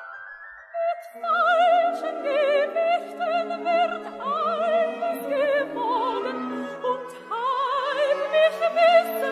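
Coloratura soprano singing an opera aria with orchestral accompaniment. She sings held high notes with wide vibrato and several quick rising runs, after a short lull just before one second in.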